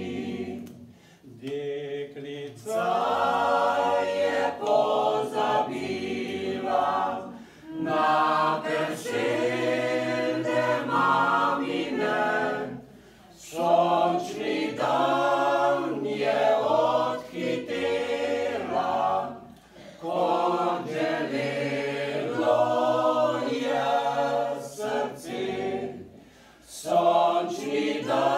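A small mixed choir of men and women singing a Slovenian folk song a cappella in harmony. The voices sing in phrases of several seconds with short breath pauses between them.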